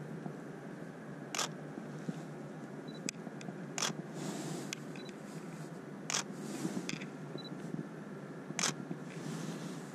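Canon DSLR shutter firing four times, about two and a half seconds apart, as frames for a panorama are shot one after another. Softer rustling and small clicks come between the shots, along with a few faint, short high beeps.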